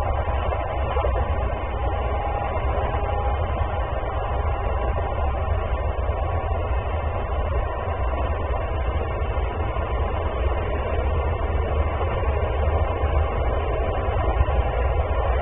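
Steady low rumbling background noise on the nest-camera microphone, even in level throughout, with no calls from the falcon.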